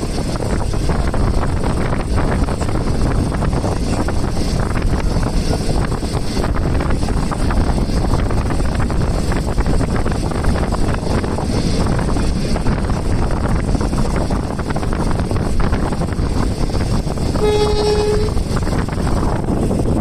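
Steady running noise of a passenger train heard through an open coach window: wheels rumbling on the track with wind rushing past. Near the end a train horn sounds one short, single-pitched blast.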